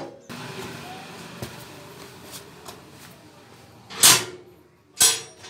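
Two loud clacks about a second apart near the end, the second with a short metallic ring, from a door or its latch being worked, over quiet shuffling of someone moving about.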